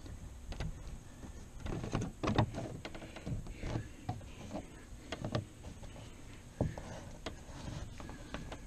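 Pop-up camper canvas rustling and scraping against the aluminium roof rail as hands press and tug its edge along the track, with scattered small knocks and clicks.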